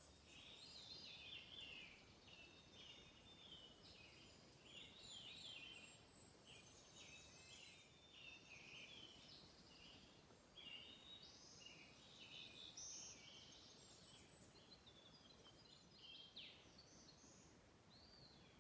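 Faint songbirds singing, several overlapping chirps, trills and warbles that go on without a break, over a low hiss.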